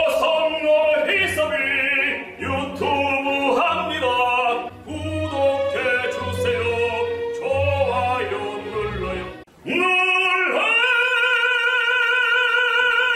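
A man singing opera over accompaniment with a pulsing low bass, ending on a long high note held with vibrato from about ten seconds in.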